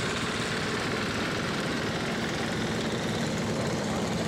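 Wheel Horse garden tractor engine running steadily at low speed as the tractor drives slowly along a gravel lane.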